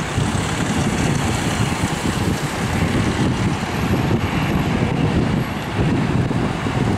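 Airbus A320's CFM56 turbofan engines at takeoff thrust, a loud, steady, deep rumble with a hiss above it as the airliner lifts off and climbs away.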